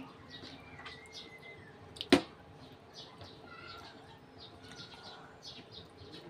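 Small birds chirping in the background, quick high chirps several times a second, with a few short whistled notes early on. One sharp click or knock about two seconds in is the loudest sound.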